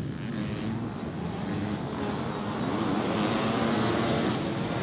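A pack of dirt bikes racing, several engines revving and changing pitch over one another. The engines get louder about three seconds in as the bikes close in.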